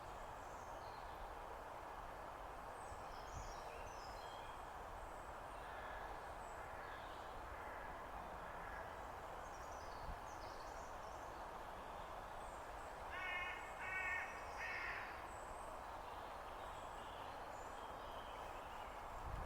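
Outdoor birdsong: small birds chirping faintly over a steady background hiss, and about 13 seconds in a larger bird gives three short, loud calls in quick succession.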